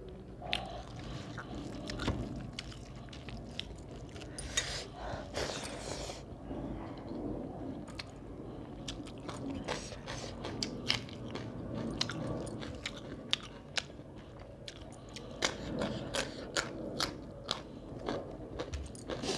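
A person chewing a mouthful of rice and fish curry, with many small sharp mouth clicks and lip smacks throughout.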